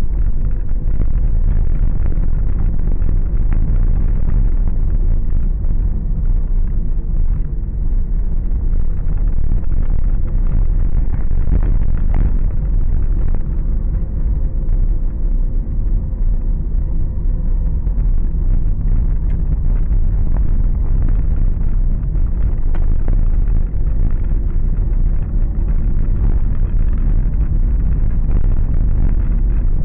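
Car driving on a rough, patched road, heard from inside the cabin: a steady low rumble of engine and tyres, with a few brief knocks from bumps.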